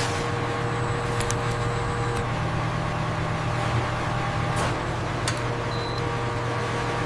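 Steady hum of running processing machinery, holding several fixed tones, with a few faint clicks.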